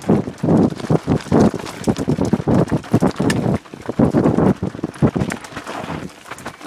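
Downhill mountain bike running fast over a rough dirt singletrack: a continuous irregular rattling and knocking of the bike over bumps and stones, easing briefly twice.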